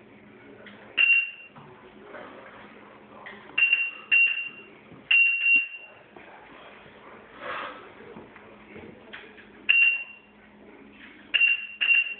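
Proliner 3D digitizer beeping: about eight short, high electronic beeps of the same pitch at irregular intervals. Each beep confirms a point recorded as the stylus on its wire is touched to the cabinet edges to trace the countertop outline.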